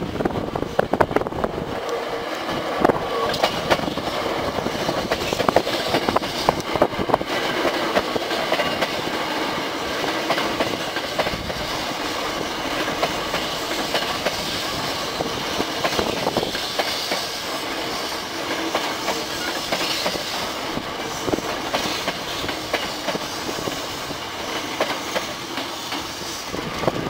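Hankyu 8300 and 7300 series eight-car electric train pulling away from a station and rolling past close by, its steel wheels clacking steadily over the rail joints.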